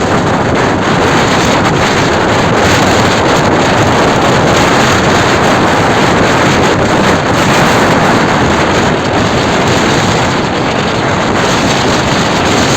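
Rough sea surf and strong wind blowing, a loud, steady rushing noise with wind buffeting the microphone.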